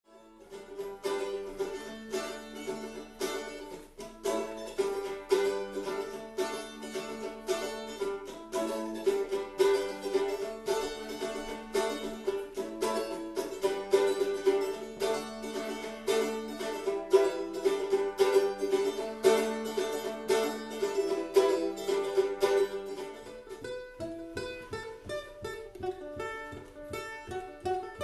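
Traditional Irish music: a quick tune picked out on plucked string instruments over a held lower accompaniment, which drops away near the end.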